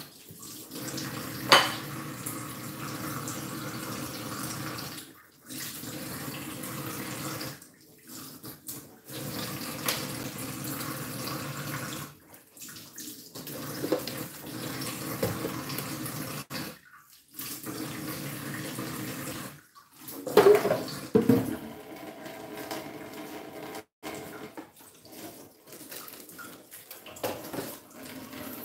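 Water running from a kitchen tap into a stainless steel sink, stopping and starting several times, with clattering dishes and utensils. A sharp knock comes about one and a half seconds in, and the loudest clatter of dishes comes about twenty seconds in.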